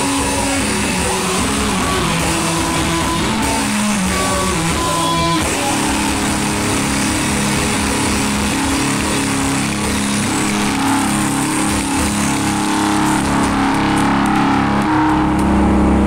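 A band playing rock music with guitar to the fore, a steady wash of held, changing notes. A deep low hum swells in near the end.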